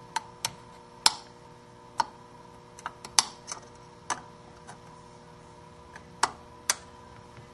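Snap-ring pliers working a steel C-clip onto the hub of a Ridley Type II CVT drive clutch: a dozen or so irregular sharp clicks of metal on metal, a few of them louder, as the clip is spread and seated in its groove.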